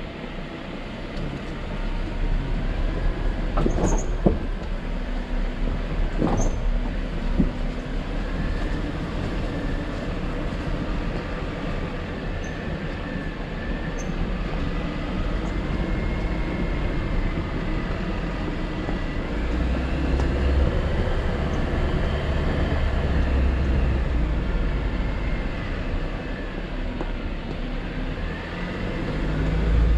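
Jeep Wrangler JL driving slowly along a dirt and rock trail: the engine running steadily with tires rolling over the dirt, and two sharp knocks about four and six seconds in. A low rumble swells about twenty seconds in and again near the end.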